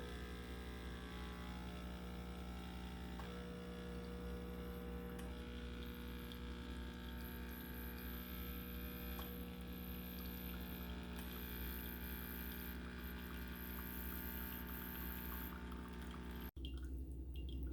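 Wirsh Home Barista Plus espresso machine's pump humming steadily as hot water runs through the empty double filter basket into a cup, a cleaning flush before first use. The hum stops abruptly near the end.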